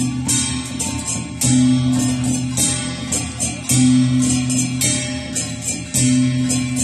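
Music with a repeating pattern: a low note held for about a second comes back roughly every two seconds, under quick, bright percussive hits.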